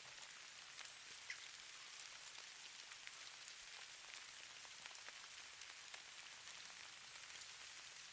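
Snow falling: a faint, steady high hiss dotted with many tiny scattered ticks of flakes landing.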